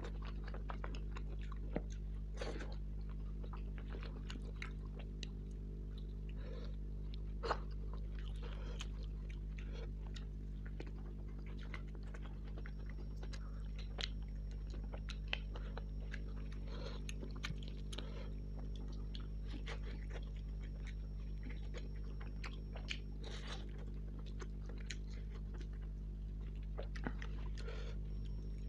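Close-up chewing and biting of spicy tandoori chicken: irregular wet mouth clicks, smacks and small crunches over a steady low electrical hum.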